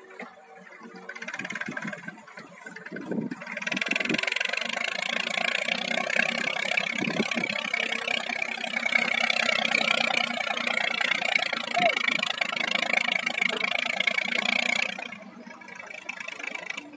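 Farm tractor's engine running as it pulls a trailer. It swells up loud about three seconds in and drops back near the end.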